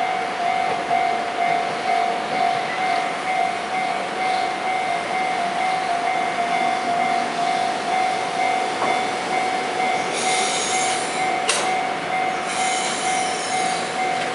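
Chikuho Electric Railway tram running along its track, with a steady ringing tone throughout. Bursts of hissing wheel noise come about ten and twelve seconds in, with a sharp click between them.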